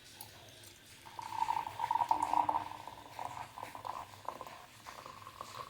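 Hot ginger decoction poured through a strainer, with liquid splashing and trickling. It starts about a second in, is strongest for the next second and a half, then thins to a fluttering trickle.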